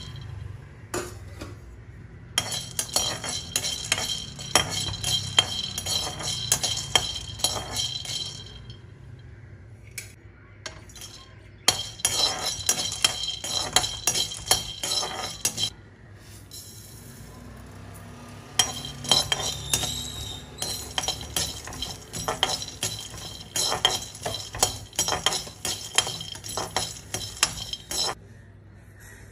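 Metal slotted spoon stirring nuts and seeds in a dry pan: rapid scraping and clinking of the spoon on the pan, with the nuts rattling as they are tossed. It comes in three long spells of stirring with short pauses between.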